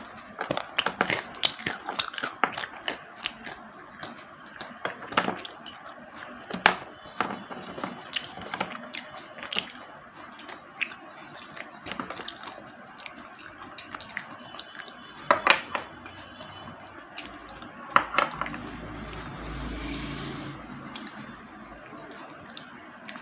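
Slate pencils being bitten and chewed: crisp, dry crunches and cracks, thick and fast for the first few seconds, then single crunches now and then, with louder double cracks at about 15 and 18 seconds. A softer muffled rustle follows near the end.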